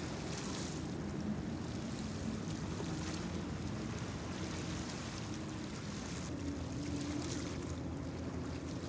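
Steady low drone of a Landing Craft Utility's diesel engines running at cruising speed, with wind and water noise.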